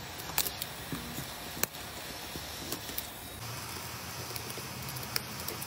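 Steady hiss of a hot-air nozzle heating an iPhone 12 Pro's back, with a few sharp clicks and cracks as a steel blade scrapes and chips shattered back glass off the frame.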